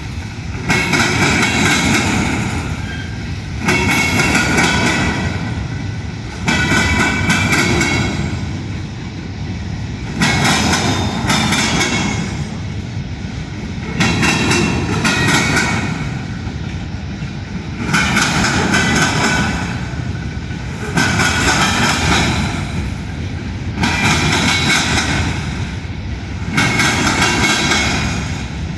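Union Pacific train cars rolling past, wheels clacking over the rail joints in a group every three to four seconds over a steady rumble.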